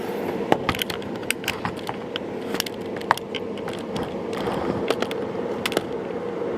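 Irregular sharp plastic clicks, knocks and rattles as an unplugged Dyson Light Ball upright vacuum's hose and wand are handled and set up, over a steady hum.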